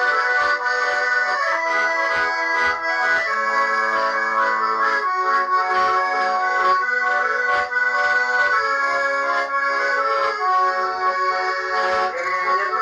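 Accordion playing an instrumental passage of a song: held chords with a melody line moving over them.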